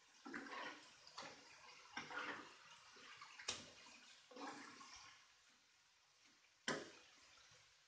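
A spatula scooping thick chili sauce in a frying pan and spooning it over pieces of fish: soft, wet slopping swishes. The utensil knocks sharply on the pan twice, once midway and once near the end.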